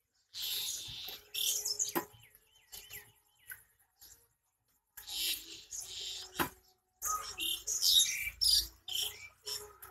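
Dry leaves and twigs on the ground rustling and crackling in short, irregular bursts, with a few faint bird chirps among them.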